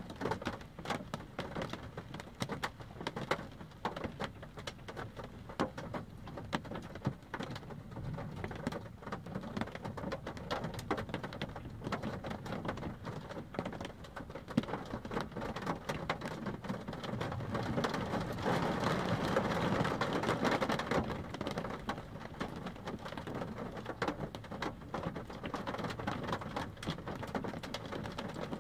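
Steady rain pattering on a car's roof and windshield, heard from inside the car, with a rumble of thunder swelling up about two-thirds of the way through.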